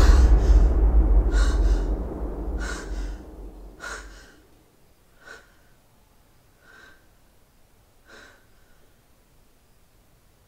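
A man breathing in short, sharp breaths through an open mouth, about one every second and a half. Under the first breaths a low music drone fades away over the first four seconds.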